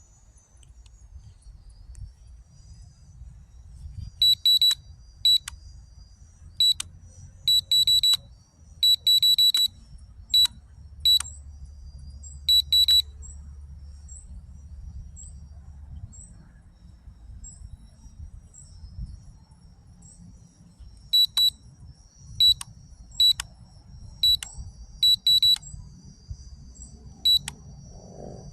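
Short, high-pitched electronic beeps in quick clusters: a burst of clusters from about four seconds in, a pause, then more from about twenty-one seconds in. Crickets chirp steadily behind them.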